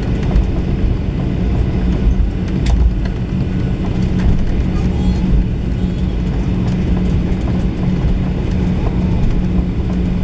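Cabin noise inside a taxiing Boeing 737-800: a steady low rumble from the idling CFM56 engines and the wheels rolling on the taxiway, with a steady hum. A single sharp click sounds about three seconds in.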